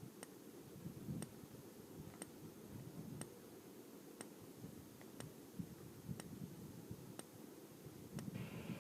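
Faint regular ticking, about one tick a second, in a quiet room. Near the end a fire alarm's steady high tone starts up faintly.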